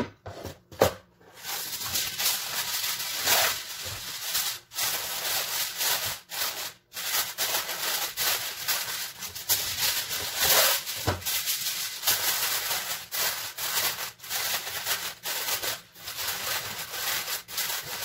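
Aluminium kitchen foil crinkling and rustling as a sheet is pulled off the roll and pressed down around the rim of a baking pan, with short pauses between handfuls. A few sharp knocks come in the first second.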